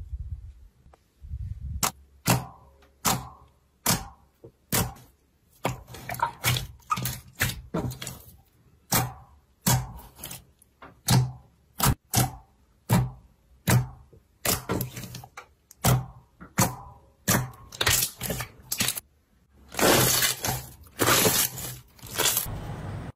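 Clear slime being pressed and poked with the fingers, with air pockets popping in a string of sharp pops, about one or two a second. Near the end the pops run together into a denser crackling.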